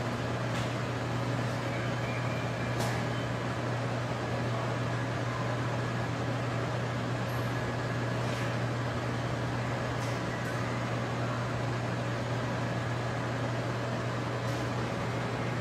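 Steady low mechanical hum with a faint hiss behind it, and a few faint ticks scattered through.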